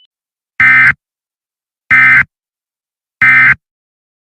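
Emergency Alert System end-of-message data bursts: three short, loud digital buzzes, each about a third of a second and about 1.3 seconds apart. They signal the end of the alert.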